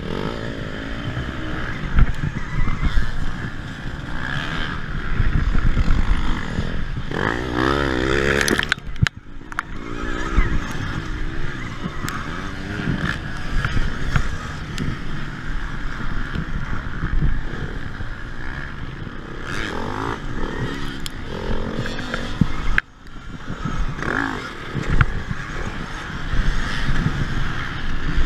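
On board an electric KTM Freeride-E dirt bike racing among petrol motocross bikes: wind and rumble from riding over rough ground, with engines nearby revving up and down, loudest about seven to nine seconds in.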